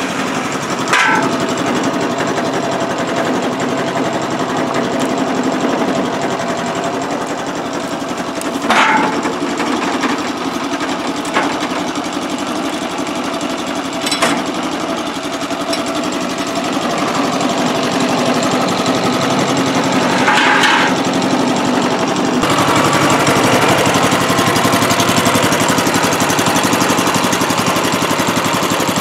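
Homemade bandsaw mill's 13 HP gasoline engine running steadily, with a few sharp knocks as a log is handled on the steel frame. The engine becomes louder and brighter about three quarters of the way through.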